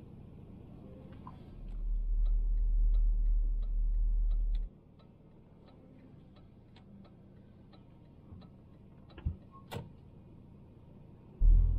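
A Citroën Xantia's turn-signal indicator ticking steadily inside the cabin. A loud low rumble runs for a few seconds, from about two seconds in. Two sharp knocks come a little after nine seconds, and another low rumble comes near the end.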